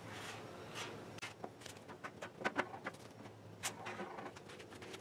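Plastic body-filler spreader swiping filler across a steel fender patch: a run of short, faint scrapes at an uneven pace.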